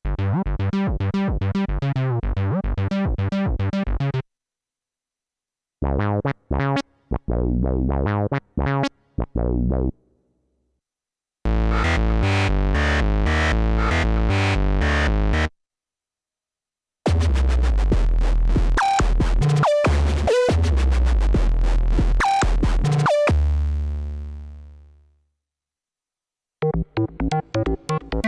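Korg Minilogue XD four-voice analog synthesizer playing one factory preset after another, each a short phrase of a few seconds with a brief silence between. In turn: rapid repeated notes, a choppy stop-start pattern, a held chordal pattern, a deep sequence with several pitch sweeps that fades out on a long release, and near the end the start of another fast pattern.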